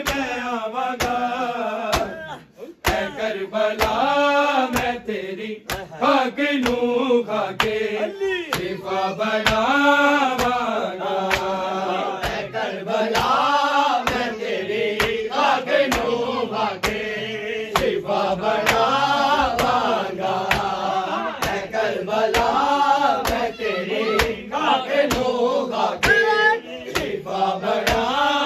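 Group of men chanting a noha in unison, with steady rhythmic chest-beating (matam) keeping time.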